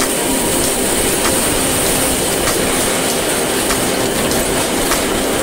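Muddy floodwater rushing down a narrow street in a loud, steady roar, with scattered faint clicks and knocks through it.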